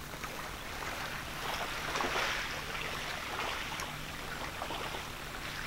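Steady hiss of surf washing on a beach, swelling about two seconds in, with a faint steady low hum underneath.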